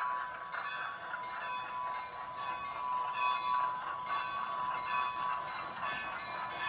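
Sound decoder in an HO scale model of an EMD SW8 diesel switcher, playing a steady diesel engine sound through a small speaker, thin with little bass.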